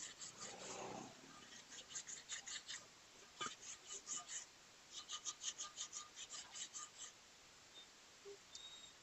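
Sandpaper scrubbed back and forth over a rusty motorcycle wheel rim, scouring off the rust: several runs of quick, short scratchy strokes with brief pauses between them.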